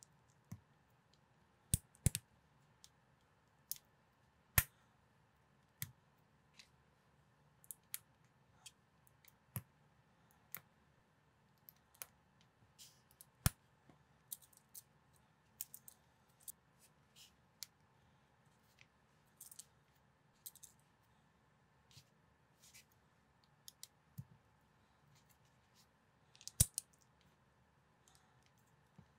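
Small plastic building bricks being handled and pressed together, giving irregular sharp clicks and snaps about one or two a second over a faint steady hum. The loudest snaps come about two seconds in and near the end.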